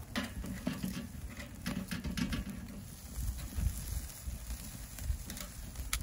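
Metal tongs clicking and scraping against a grill grate as chicken pieces are lifted and moved: a scattered series of sharp clicks.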